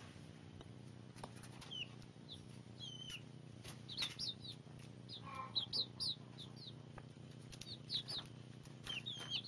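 Young chickens (pullets) peeping: scattered short, high chirps, some rising and some falling, often two or three in quick succession.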